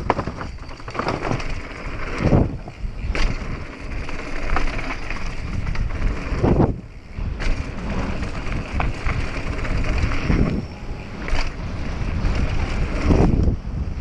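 Wind rushing over the microphone of a camera on a mountain bike riding fast down a dirt trail, with tyre noise and several sharp knocks and rattles as the bike hits bumps.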